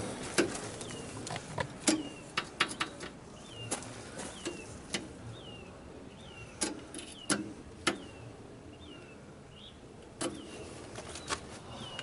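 Scattered sharp clicks and knocks of a lineman's tools and multimeter probes against an open metal electric meter socket, while a bird repeats a short high falling chirp over and over.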